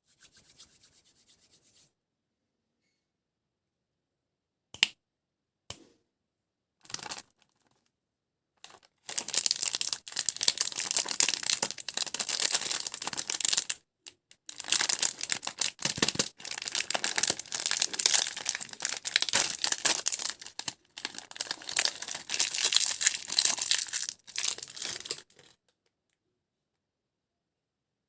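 Crinkly plastic snack wrapper being handled and torn open: a few sharp clicks, then a long stretch of dense crackling and tearing with two short pauses, ending abruptly.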